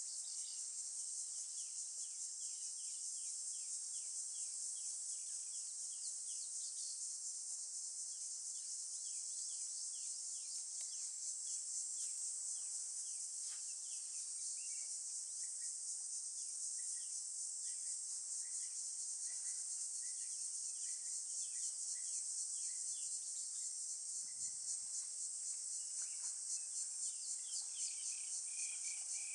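A steady, high-pitched chorus of insects with a fast pulsing texture. A bird gives short, quick chirps over it again and again.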